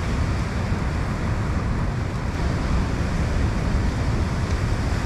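Wind buffeting the microphone in a steady rumble, over the hiss of ocean swell breaking on the rock ledge.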